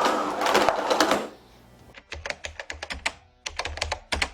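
Miele Blizzard CX1 vacuum's one-tap cord rewind reeling the power cord into the body with a loud whirring rattle that stops about a second in. It is followed by a rapid string of sharp clicks and taps.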